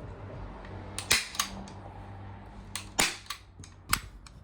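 Hand staple gun firing staples to fasten upholstery fabric to a couch frame: about six sharp snaps at uneven intervals, the loudest about a second in, at three seconds and near the end.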